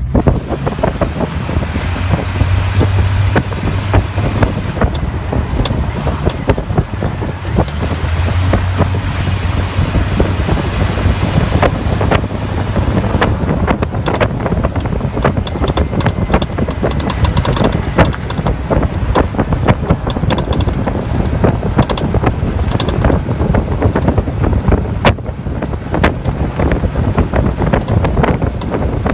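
Jeep Cherokee moving, with irregular popping from the rear over steady road noise. The popping is an undiagnosed fault whose source is being hunted.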